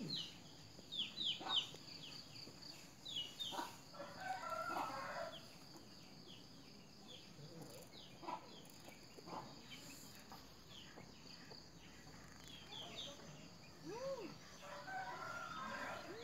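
Chickens calling in the background: many short, quick, high falling chirps throughout, with a few longer pitched calls about four seconds in and again near the end.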